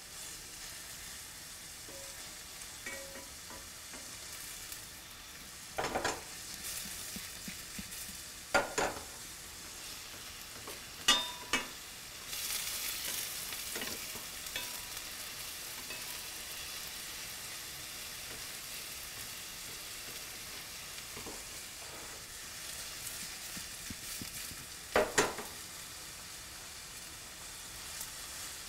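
Onion, celery and garlic sizzling in olive oil in a stainless steel skillet while being stirred with a wooden spatula. The steady sizzle swells for a while about twelve seconds in, and a few sharp knocks of the spatula on the pan stand out, one of the loudest near the end.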